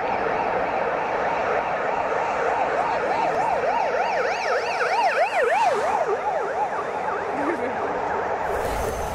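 Emergency-vehicle siren in a fast yelp, its pitch sweeping up and down about twice a second over a steady wash of noise. Near the end a deep rumble and hiss cut in suddenly.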